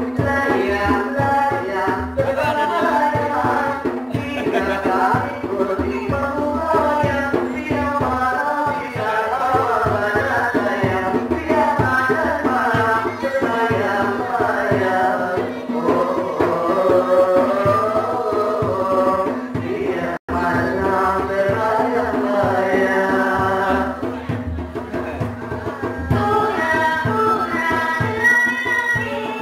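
Live Bermukun music: a singer's voice through a microphone and loudspeaker, over hand-played frame drums and a steady held note underneath.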